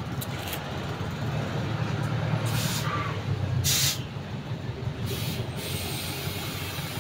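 Short hisses of compressed air from an air chuck pressed onto a tire's valve stem as the tire is inflated, four or five bursts under half a second each. A steady low rumble of street traffic runs underneath.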